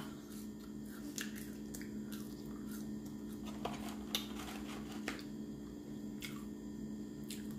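Quiet chewing and mouth sounds from eating McDonald's french fries, with scattered soft clicks, over a steady low hum.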